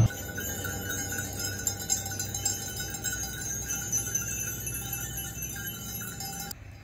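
Many small metal bells jingling and ringing together as a steady mix of high tones; most of the high ringing cuts off near the end.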